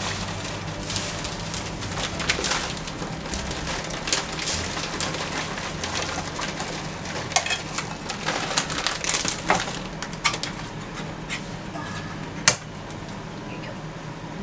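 Irregular rustling, scraping and clicking from handling food and utensils while brownie ingredients are mixed, with one sharp click near the end.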